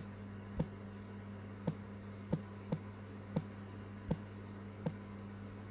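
Taps on a smartphone's on-screen keyboard while typing: about eight short, sharp clicks at an uneven pace, over a steady low hum.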